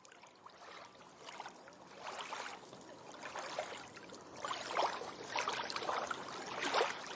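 Small waves washing onto a shallow sandy beach: a steady swish of water that fades in and swells and eases unevenly every second or so.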